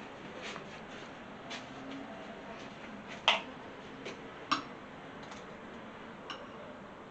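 A few scattered light clicks and taps, the sharpest about three seconds in, over a quiet room. They are small handling knocks around the stopped blender and its glass jar.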